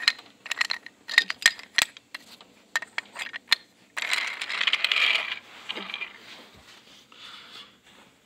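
Wooden toy railway track pieces and trains clacking and knocking together as they are handled: a quick run of sharp clicks through the first few seconds. About four seconds in, a second or so of scraping, rustling noise.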